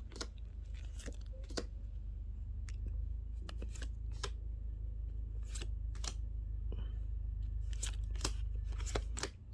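Trading cards being flipped and slid against one another in the hand, giving irregular sharp snaps about two a second, over a low steady hum.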